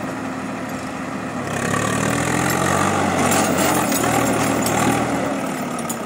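Diesel tractor engine running, then revving up about a second and a half in, its pitch wavering under effort, and easing back near the end.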